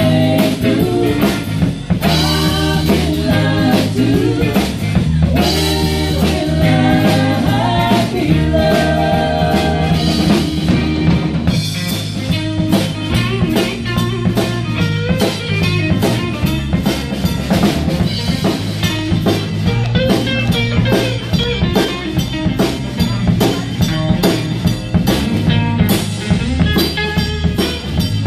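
Live rock band playing: two women singing over electric guitars, bass and a drum kit. About twelve seconds in, the singing drops out and the band carries on with an instrumental break, electric guitar to the fore over a steady drum beat.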